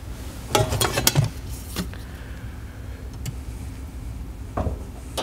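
Light metallic clattering and clicks about half a second in, then a few scattered clicks and a dull knock near the end, as the Ferrari 308's rear engine lid is held up and handled.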